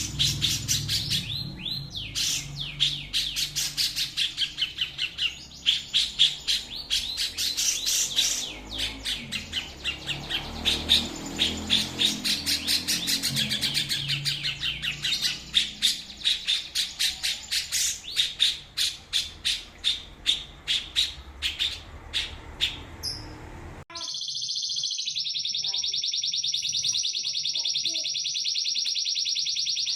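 Songbird singing a long run of rapid, repeated chirps and trills. About 24 seconds in it cuts abruptly to a different bird giving one continuous, very fast, high buzzing trill.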